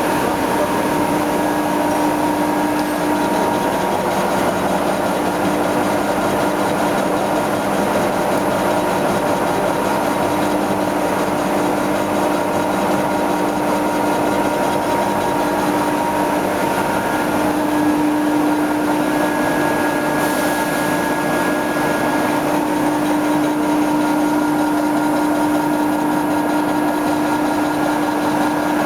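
16R30F3 (16M30F3) CNC lathe running: a steady machine hum with several constant whining tones over continuous noise.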